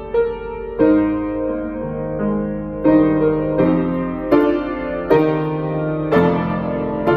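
Grand piano played solo: a slow piece in sustained chords, with a new chord struck roughly once a second.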